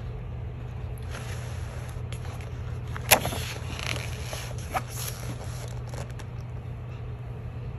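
Pages of an art book being turned and handled: paper rustling and sliding, with a sharp snap of a page about three seconds in and a smaller tap near five seconds, over a steady low hum.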